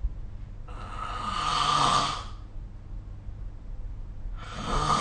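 A person snoring in their sleep: two snores, each lasting about a second and a half with a low buzzing pitch under a breathy rasp. The second begins near the end.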